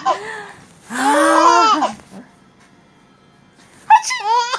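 A five-month-old baby's high-pitched squealing vocal sounds. There is one long, arching squeal about a second in, a short pause, then more squeals near the end.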